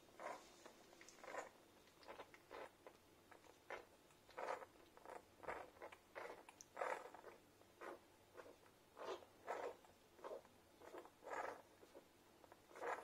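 Newborn Irish Setter puppies suckling at their mother: a steady run of short, soft sucking and squeaking noises, about two a second.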